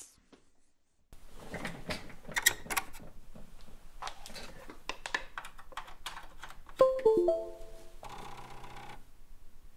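Teac FD-55GFR 5.25-inch floppy drive initialising when powered up over USB: starting about a second in, a run of clicks and rattling from the drive mechanism, then near the seven-second mark the loudest part, a few short tones stepping down in pitch, followed by about a second of buzzing as the head stepper seeks.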